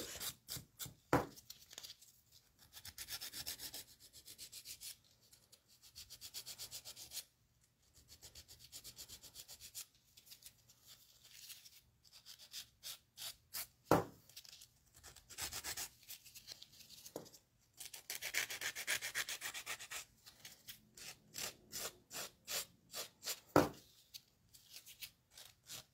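Medium/coarse hand nail file rasping over a sculpted acrylic piece: runs of quick back-and-forth filing strokes, with short pauses between runs. Two sharp knocks stand out, one about halfway through and one near the end.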